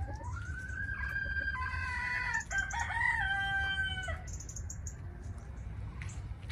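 A rooster crowing: one long crow of several drawn-out notes, rising at the start and lasting about four seconds.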